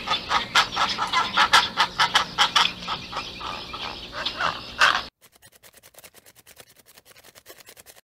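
Birds calling in a fast, dense run of short harsh calls that cuts off abruptly about five seconds in. After that only a faint, rapid, even ticking remains.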